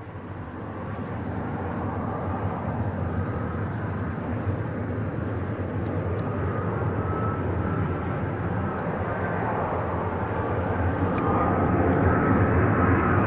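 Boeing 757 airliner's twin jet engines on final approach at low thrust, a steady rumble with a faint whine, growing steadily louder as the plane nears.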